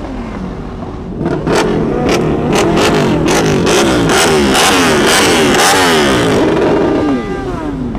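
An engine revved hard in quick repeated blips, its pitch sweeping up and down about twice a second, with sharp exhaust pops and crackles. It starts about a second in and falls away near the end.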